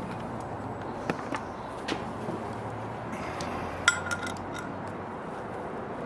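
Metal compressor parts and tools clinking a few times over a steady background noise; the loudest clink, a little past the middle, rings briefly.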